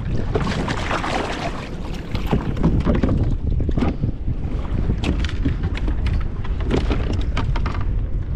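Wind buffeting the microphone over water lapping at a kayak's plastic hull, with scattered sharp knocks and splashes from a landed uku (green jobfish) being handled at the side of the kayak.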